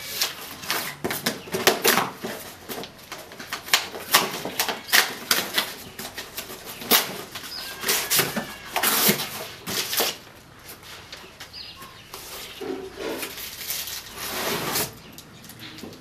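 Cardboard carton flaps being pulled open and handled: a run of crackling, rustling and sharp cardboard snaps, thinning out for a while after about ten seconds.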